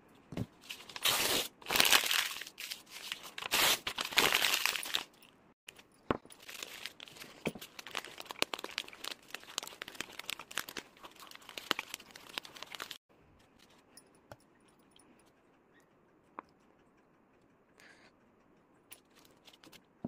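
Paper crumpled by hand into a tight ball. Loud crinkling and crackling for about five seconds, then softer crinkling that stops about thirteen seconds in.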